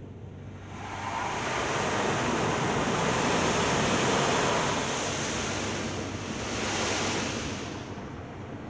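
High-pressure water jets of a touchless car wash spraying over the car, heard from inside the cabin as a loud hiss that swells about a second in, eases, swells again briefly and then fades.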